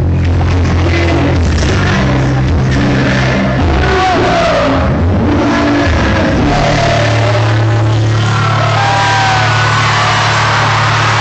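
Live rock band playing loud and distorted, heard from within the crowd: the bass moves through several notes, then from about six and a half seconds in one low note is held steady while voices from the crowd rise above it.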